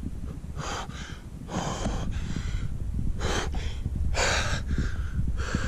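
A man gasping and breathing hard in short, heavy breaths, about five of them roughly a second apart: the cold-shock response of sinking shoulder-deep into cold lake water.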